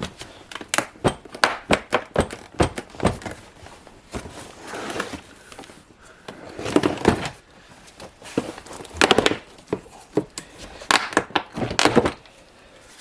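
Hard plastic door trim parts knocking and clicking as they are handled and pried loose, in irregular sharp clicks and thunks that come in denser clusters about seven, nine and eleven seconds in.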